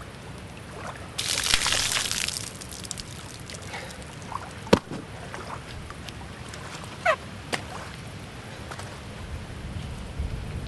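Water pouring out of an upturned rubber boot in a short splashing gush about a second in. Later there is a sharp click and a couple of short squeaks that fall in pitch.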